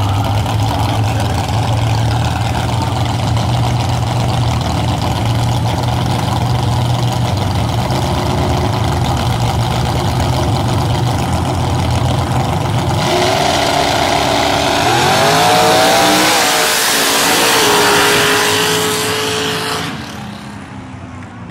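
Mud racing trucks' engines idling steadily, then at about thirteen seconds in they launch and rev hard, the pitch rising as they run down the mud track. The sound falls away sharply near the end.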